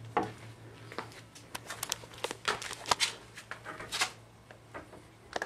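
Irregular clicks, taps and rustles of hand-held handling, coming every few tenths of a second, over a faint low hum.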